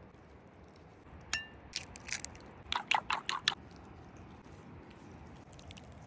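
Cookware being handled: a single ringing metallic clink, then a few sharp clicks and a quick run of about six clicks and clatters.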